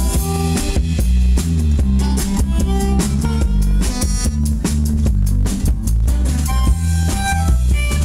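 Live blues band playing an instrumental passage: a drum kit with snare and cymbals keeps a steady beat under electric bass and acoustic guitar.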